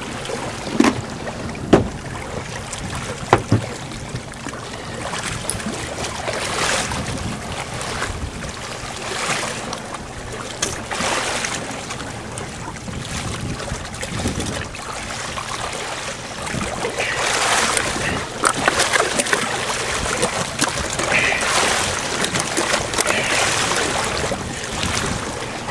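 Sea water sloshing and splashing against a boat's hull around a bluefin tuna held alongside, with wind on the microphone. The splashing comes in surges, loudest past the middle, and three sharp knocks sound in the first few seconds.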